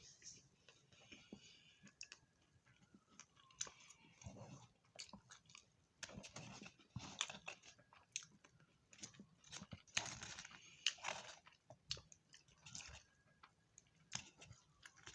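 A person chewing food close to the microphone, faintly: irregular mouth clicks and short crunchy bursts of eating.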